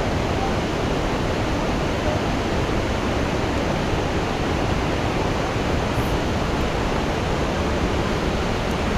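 Steady, unbroken rushing roar of a large waterfall.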